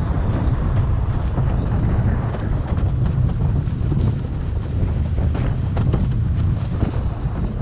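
Strong wind buffeting the microphone over the rush of water past a windsurf board, with short slaps now and then.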